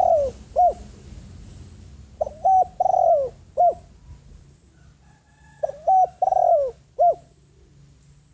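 Spotted dove cooing its territorial call, a lure bird calling wild doves: the tail of one phrase at the start, then two full phrases of several short coos with a longer middle note, about three and a half seconds apart.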